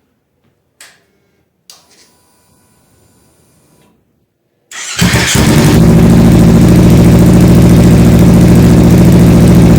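Kawasaki Ninja 300 parallel-twin being started: two light clicks and a faint whine, then about five seconds in the engine cranks, catches and settles into a loud, steady idle through a Coffman's shorty slip-on exhaust, no longer so muffled as with the stock system.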